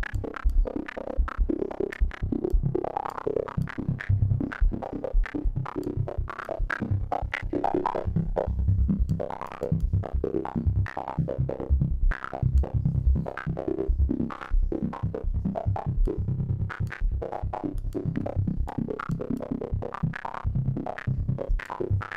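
A Serum software-synth patch plays in rapid stuttering sixteenth-note pulses, chopped by an LFO on its level, with an FM-modulated tone panning side to side. It grows wider and thicker as Serum's Hyper/Dimension unison-chorus effect is turned up.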